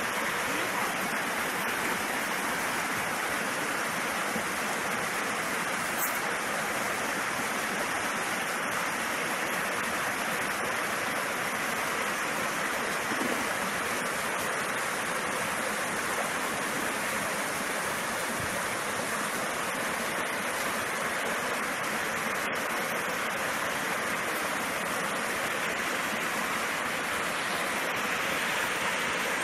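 Water pouring steadily through a gap in a small concrete check dam and splashing into the shallow, rocky stream below, a continuous rushing sound.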